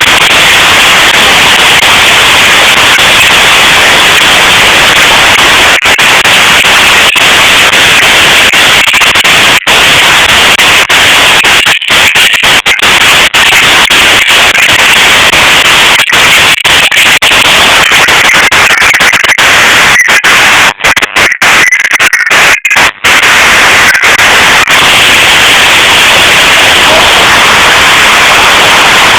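Hailstorm: a dense, very loud, unbroken clatter of hailstones pelting down, with a few brief dropouts in the sound around the middle.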